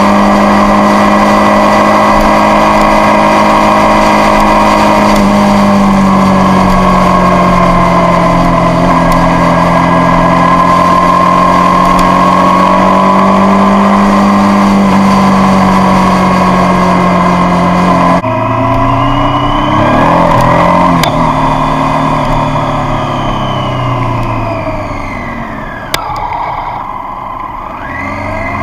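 Triumph Street Triple's three-cylinder engine holding a steady note at motorway cruising speed, with wind rush. About two-thirds through, the wind noise drops away and the engine note falls in several downward glides as the bike slows, with a single sharp click near the end.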